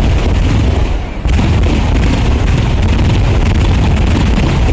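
Traditional Kerala temple fireworks (vedikkettu) going off in a rapid, continuous barrage of loud, overlapping bangs and booms, with a brief lull about a second in.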